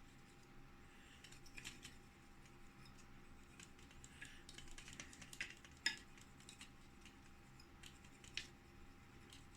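Faint, scattered small clicks and taps of hands handling a graphics card's fan assembly and cleaning tools, the sharpest about six seconds in, over a faint steady hum.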